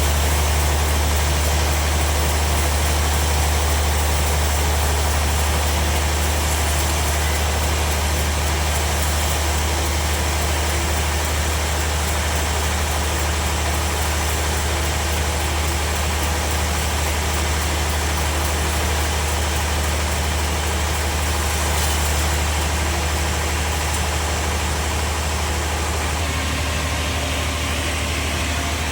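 Sawmill machinery running steadily, a strong constant low engine hum with a broad mechanical noise over it.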